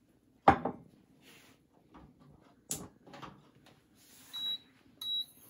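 Kitchen handling sounds: a sharp knock about half a second in and another near three seconds, with a few soft clicks between. Near the end come two short high beeps, the sort an induction cooktop's touch controls give.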